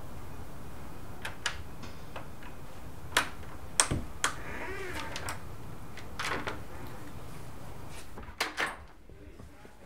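An apartment front door being unlocked and opened: a string of sharp clicks and a short rattle from the lock and lever handle, with a last pair of clicks near the end. A steady low background hum drops away about eight seconds in.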